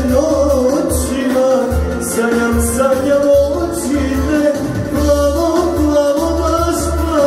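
A man singing into a handheld microphone over backing music, holding long wavering notes, with a bass that pulses about twice a second.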